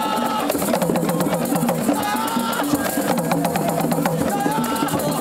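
Music with a steady, busy percussion beat and a melodic line over it.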